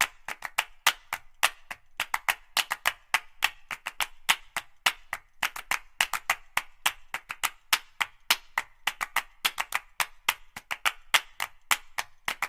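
A rapid, irregular run of sharp, dry clicks or taps, several a second.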